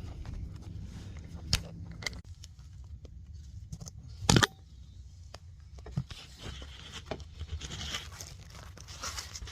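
Metal parts and hand tools clicking and knocking while a new transmission mount and its three bolts are set in place. A sharp clank comes about four and a half seconds in, and there is scraping and rustling near the end.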